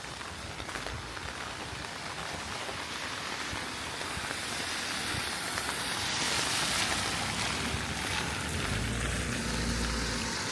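Steady rain with a vehicle passing on the wet road: the hiss of its tyres on wet tarmac swells about six seconds in, followed by a low engine rumble near the end.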